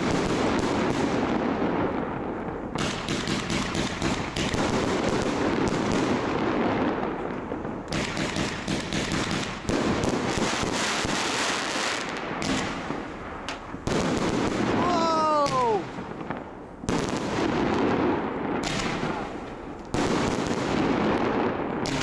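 Fireworks display: aerial shells launching and bursting in quick succession, a dense, continuous barrage of bangs. A brief falling tone cuts through about two-thirds of the way in.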